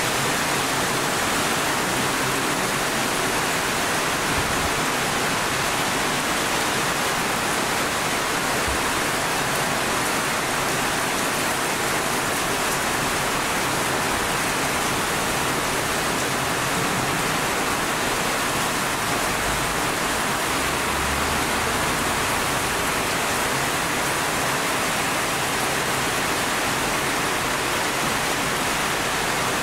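Steady hiss of rain, even and unchanging throughout, with no aircraft engine standing out.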